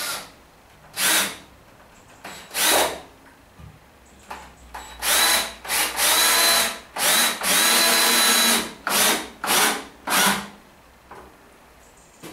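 Cordless drill with a crosshead bit driving 100 mm wood screws into timber: a series of short bursts of the motor running, with a cluster of longer runs of up to about a second in the middle.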